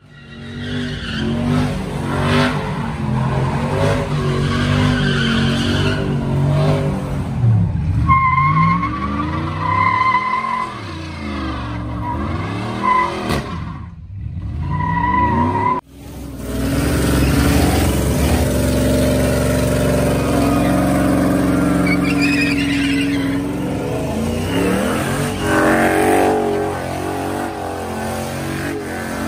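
Pickup truck engines held at high revs during burnouts, with rising and falling revving and rear tires squealing as they spin on the pavement. The sound cuts out suddenly about halfway through, then a second burnout comes in.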